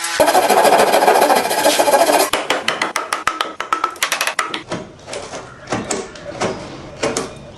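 Hand tools working wood: a dense scraping stroke lasting about two seconds, then a run of sharp, irregular taps and knocks on wood.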